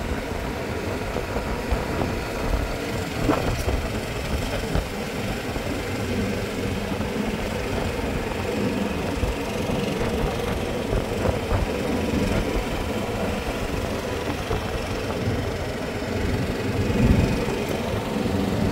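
Golf cart riding along a paved road: a steady rumble and rattle from the moving cart.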